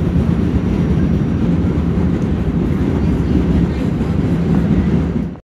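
A new R211S subway train passing close by at speed: a loud, steady rumble of wheels on rail and running gear that cuts off suddenly near the end.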